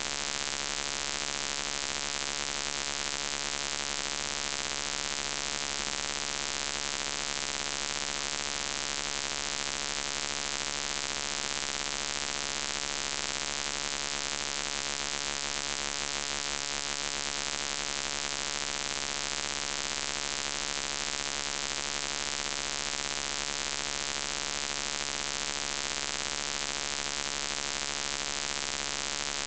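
Steady electrical buzz with many overtones, unchanging throughout.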